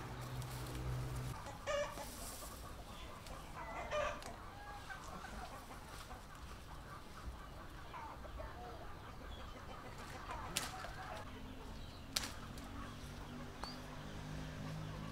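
Chickens clucking, with two louder calls about two and four seconds in. A couple of sharp clicks come later.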